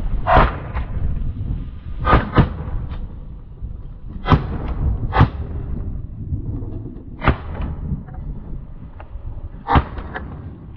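About seven shotgun shots from several hunters firing at ducks over roughly ten seconds: two close together about two seconds in, then others spaced a second or more apart. Strong wind rumbles on the microphone throughout.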